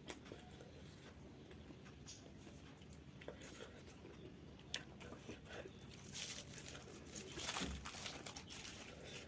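Rustling and crinkling of something being handled, with a few small clicks scattered through; the rustling is loudest in a stretch a little past the middle.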